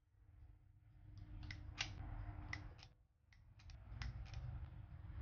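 A stainless spring-loaded scoop releasing thick banana bread batter into a parchment-lined loaf pan: soft scraping and handling noise with quick metallic clicks from the scoop, in two rounds, the second starting about three and a half seconds in.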